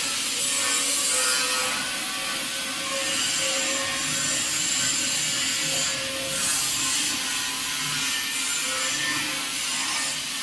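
Rovan DB225 dustless wet sandblaster blasting: a steady, bright hiss of water-and-abrasive spray rushing from the nozzle, with faint steady tones underneath.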